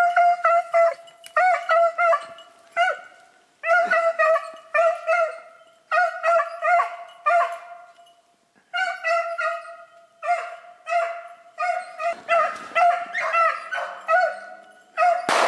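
Beagles baying on a snowshoe hare's scent trail: rapid, short, high yelps in runs with brief pauses. Near the end comes a single loud gunshot.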